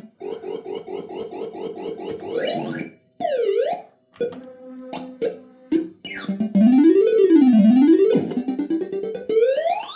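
PCP Supa Streak fruit machine's electronic sound effects during play. It starts with a fast run of beeps, about six a second, then gives a quick dipping-and-rising tone and a few short blips. After that it plays loud warbling sweeps that go up and down, ending in a rising glide.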